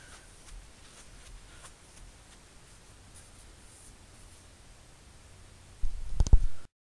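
Faint plastic clicks and scratches from a K'nex ball flipper as its arms are turned, then near the end a loud burst of low thumps and rattling clicks that cuts off suddenly.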